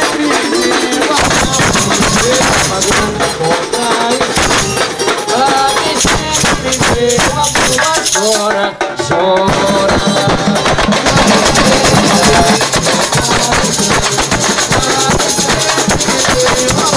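Samba batucada: chocalhos (frames of metal jingles) shaken in a fast, steady rhythm together with tamborins struck with sticks.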